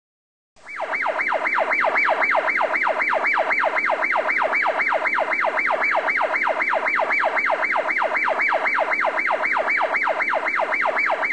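Electronic siren in a fast yelp: a rapid, even warble of about four pitch sweeps a second. It starts abruptly out of silence about half a second in.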